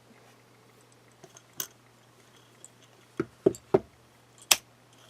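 A handful of sharp clicks and taps from small hard objects being handled close to the microphone: a single click, then a quick run of three, then one more.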